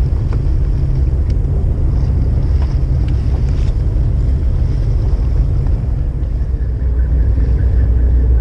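Wind buffeting the microphone on a small boat at sea, a steady low rumble with a few faint ticks in the first seconds. Near the end the low rumble grows a little louder and a faint steady hum joins it.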